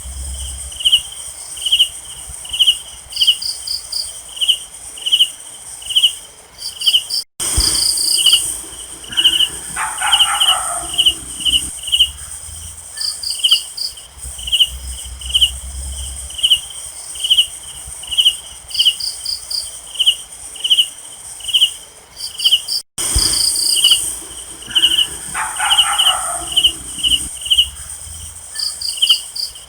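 Crickets chirping steadily at night, about three chirps every two seconds, over a continuous high insect hiss, with short trills mixed in. A brief lower call sounds twice, and the sound cuts out for an instant twice where the recording loops.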